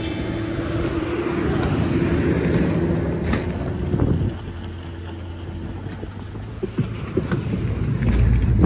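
A car driving off-road: engine and tyre noise swell over the first few seconds and drop off about four seconds in. A steady low hum follows, with a few sharp knocks and a low rumble building near the end.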